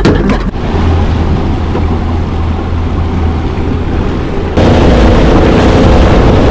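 Honda outboard motor running steadily at low speed. About four and a half seconds in, the sound jumps abruptly to a louder, fuller engine note with wind and rushing water as the boat runs at speed.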